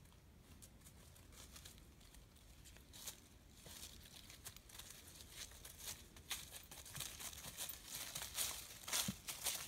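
Footsteps rustling and crackling through dry fallen leaves, faint at first and getting louder and busier toward the end.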